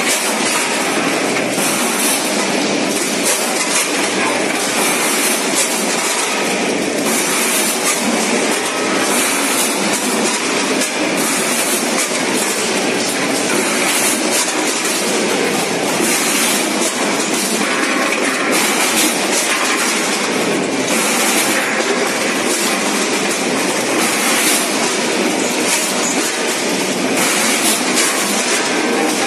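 Multihead weigher running with frozen chicken legs: a steady, loud clatter and rattle of pieces in the stainless steel hoppers, with sharper rattles about once a second.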